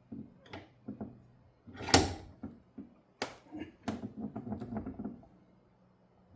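Clicks, knocks and rattles of metal hand tools and parts being handled as a cable end is squeezed and fitted into a clamp. One sharp knock stands out about two seconds in, followed by a quick run of small clicks and rattles.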